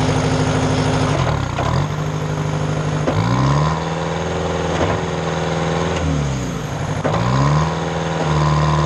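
Engine of a Mayco trailer concrete pump running, with its speed dropping sharply twice and climbing back as the main hydraulic pump is loaded for a main pump pressure check.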